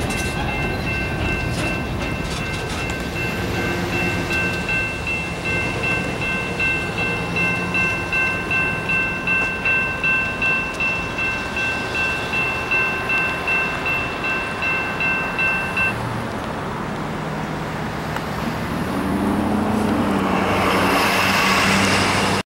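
General Signals Type-2 electronic crossing bell ringing in a steady pulse, about one and a half strikes a second, after the last freight car has cleared; it cuts off about two-thirds of the way through as the crossing signals shut down. Near the end, road traffic starts across the tracks, with a pickup truck's engine and tyres growing loud as it passes close.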